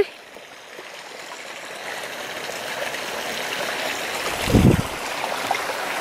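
Shallow woodland stream babbling over stones, a steady rushing that grows slightly louder, with a brief low thump about four and a half seconds in.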